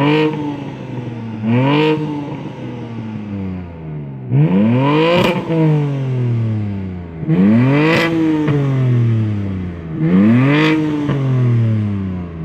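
BMW G80 M3's twin-turbo straight-six, fitted with downpipes and an M Performance titanium exhaust, free-revved at a standstill in Sport Plus. It gives about five blips, each snapping up in pitch and falling back more slowly. The tone is deep.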